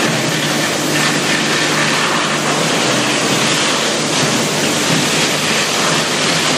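Machinery of a wood pellet production line running: a steady, loud rushing noise with a low hum underneath.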